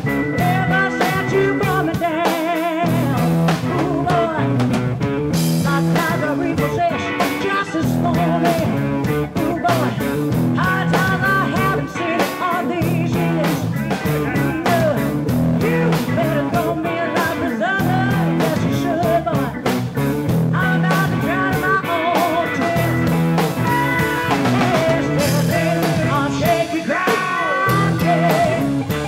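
Live rock band playing: a woman sings lead over electric guitars and a drum kit keeping a steady beat.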